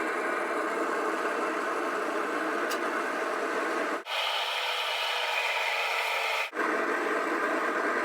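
Propane burner firing into a small homemade paint-can furnace, running with a steady rushing hiss. About four seconds in the sound cuts briefly to a brighter, hissier stretch for about two and a half seconds, then cuts back.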